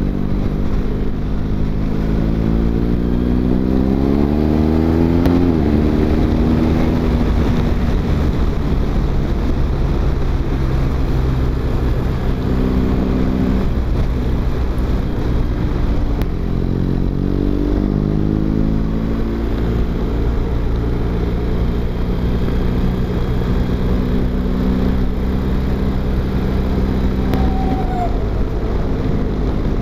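BMW GS Adventure motorcycle's twin-cylinder engine pulling through the gears. The revs climb over the first few seconds and drop at an upshift, climb again around the middle with quick upshifts, then hold at a steady cruise until the throttle closes near the end. Wind and road noise run underneath.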